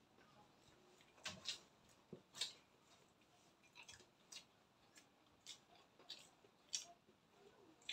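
Faint, irregular mouth sounds of people eating: chewing with wet smacks and clicks, several times over.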